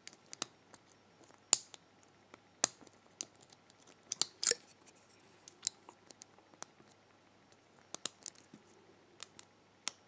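Lock pick clicking and scraping against the spring-loaded wafers inside the Illinois Duo padlock's wafer core while it is being picked under tension, in irregular sharp ticks with a few louder clicks.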